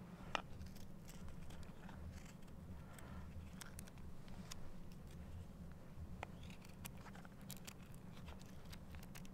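Knife blade shaving curls off a dry stick to make feather sticks: faint, scattered scrapes and ticks. A sharp snap comes about half a second in, and a low steady rumble runs underneath.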